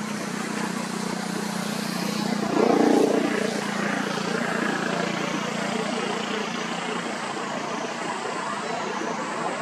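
Steady outdoor background noise with a low, engine-like hum, and a brief louder sound about three seconds in. A faint wavering high drone comes in during the second half.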